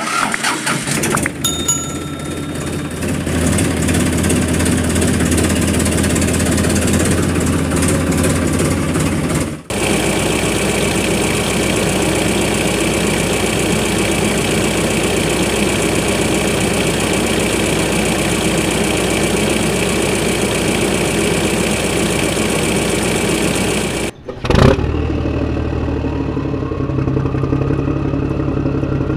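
Battery-powered toy vehicles running with a steady engine-like sound, in three stretches broken by two brief cuts. A rising rev comes in near the end.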